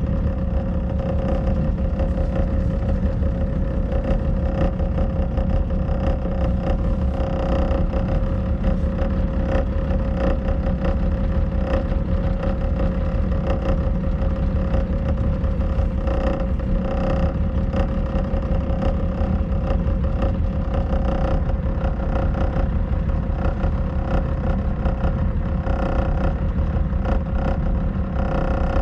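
Pleasure boat's engine running steadily while underway, a constant drone with a steady hum and low rumble that does not change in pitch.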